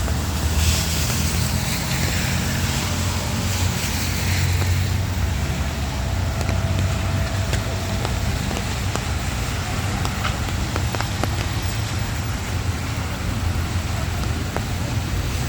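Traffic on a rain-wet city street: tyre hiss on wet pavement over a steady low rumble, with a vehicle's hiss swelling and fading in the first few seconds.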